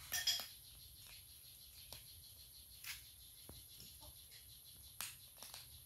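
Cat crunching dry kibble from a plate: scattered short, crisp crunches and clicks, the loudest just after the start and about five seconds in.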